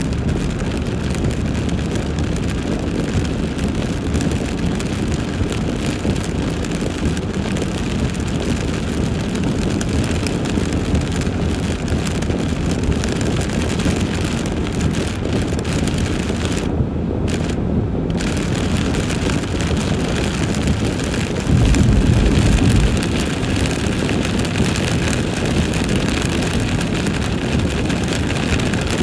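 Steady road and tyre noise of a car driving on a rain-soaked highway, heard from inside the cabin, with rain and wind hiss over it. The high hiss drops out briefly past the middle, and a louder low rumble follows for about a second and a half.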